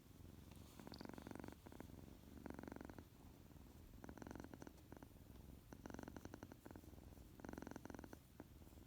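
Kitten purring softly. The purr comes in half-second bouts, about one every second and a half, with each breath.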